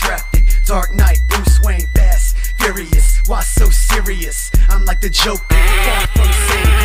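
Hip hop music with heavy, deep bass hits about every half second to a second; about five and a half seconds in the mix turns noisier and busier.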